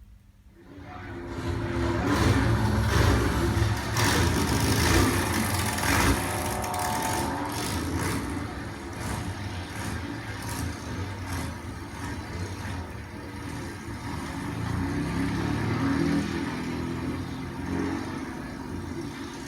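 Racing sports-car engines being run up and revved in the pits during a final tune-up, with sharp clatters in between, starting abruptly about a second in.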